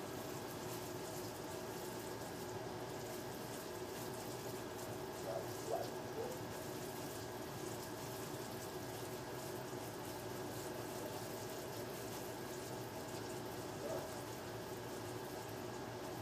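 Steady background hiss with a faint hum, with a couple of brief faint sounds about five seconds in and again near the end.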